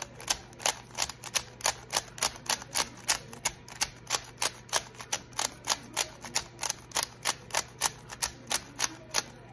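MoYu WRM V9 3x3 magnetic speed cube being turned quickly by hand, its plastic layers clicking about three times a second as each turn snaps into place. The cube is straight out of the box and not yet lubricated.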